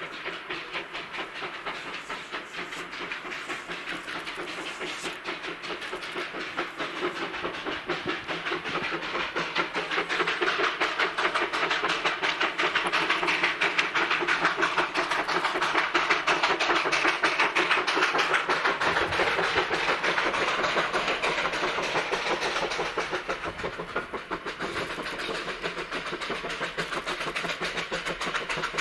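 Two-foot narrow-gauge steam locomotive working hard at the head of a freight train, its exhaust chuffing in a rapid, steady beat. The chuffing grows louder as it approaches, is loudest about halfway through, and eases slightly near the end.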